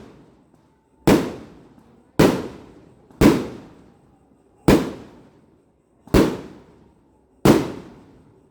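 Fireworks going off: six loud bangs, about one every second or so, each trailing off in an echoing rumble.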